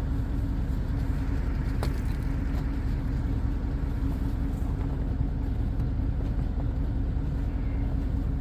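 Steady low mechanical hum with a constant drone, and one light click about two seconds in.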